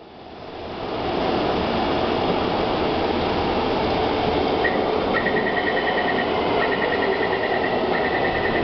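A Taipei Metro C321 train standing at an underground platform with its doors open, its equipment and air-conditioning giving a steady hum amid station noise, fading in over the first second. From about halfway, repeated runs of rapid high electronic beeping join in.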